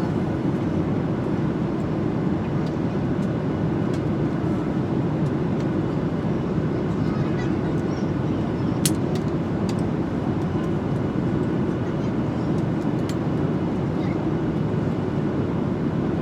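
Steady cabin noise of an airliner in flight, the even rush of engines and airflow heard from inside the cabin, with one sharp click about nine seconds in.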